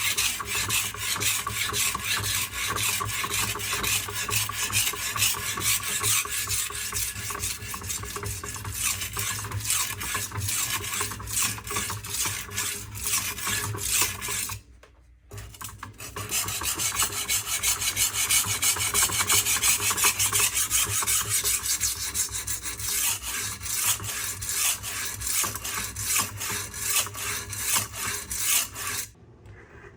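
A steel knife edge being ground back and forth on a coarse silicon carbide sharpening stone wet with lubricant, in quick rasping strokes, to grind out the last of a chip in the edge. The strokes pause for about a second midway, resume, and stop just before the end.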